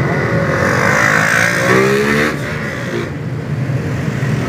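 Many motorbike and scooter engines running in a packed street. One engine revs up, rising in pitch, from about half a second in and drops off sharply a little after two seconds.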